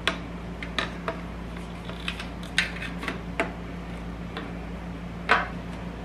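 Scattered light clicks and knocks from a motorcycle fuel tank and its metal parts being handled and seated onto a rubber mount, with one sharper knock about five seconds in, over a steady low hum.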